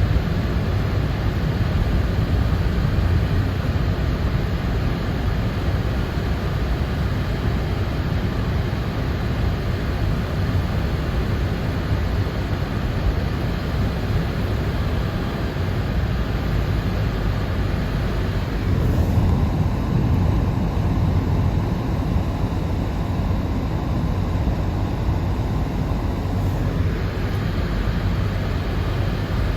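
Car driving, heard from inside the cabin: a steady low road-and-engine rumble with tyre and wind hiss. For about seven seconds past the middle the hiss turns duller.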